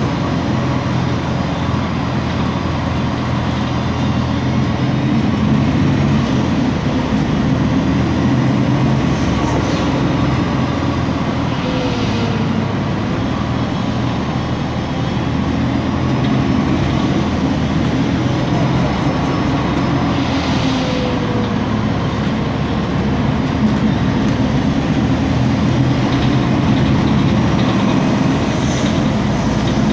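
Interior of a 2013 MAN Lion's City G articulated CNG bus under way: the MAN E2876 gas engine and ZF automatic drivetrain run with a steady drone and road noise. Two brief hisses come in the middle.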